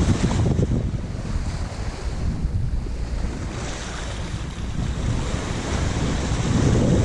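Wind buffeting the microphone over the rush of sea water along a sailboat under way, swelling louder at the start and again near the end.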